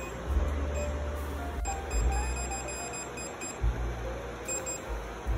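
Creality CR-10 Smart 3D printer's touchscreen beeping repeatedly on its own as phantom touches register, over a low hum that cuts in and out. The beeping is the sign of the faulty screen's ghost touches, which a firmware update made worse.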